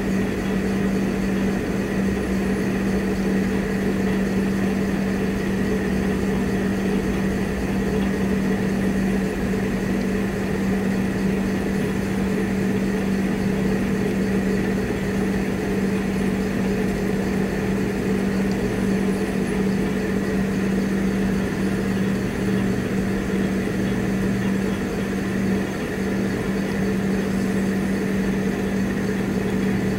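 Steady, unchanging machine hum with a strong low tone, like a motor or engine running at constant speed.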